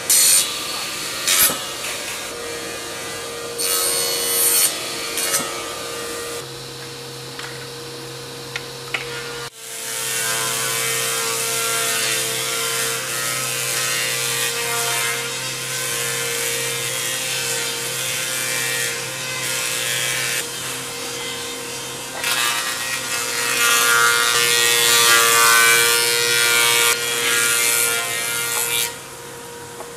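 Woodworking planing machines running with a steady hum, their cutter heads shaving boards as they are fed across, in spells of louder rough cutting noise. The loudest cutting comes from about 22 s to 29 s.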